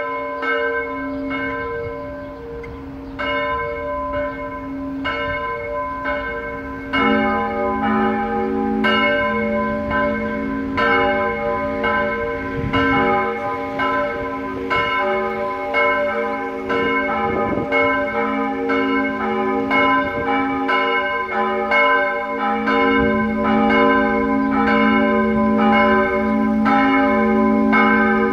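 Church bells ringing in the tower: one bell starts striking at about one stroke a second, and a second, lower-pitched bell joins about seven seconds in, the two then sounding together.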